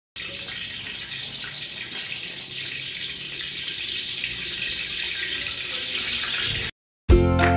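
Pork boiling hard in a pot of water: a steady, even bubbling hiss that cuts off suddenly near the end, with music starting just after.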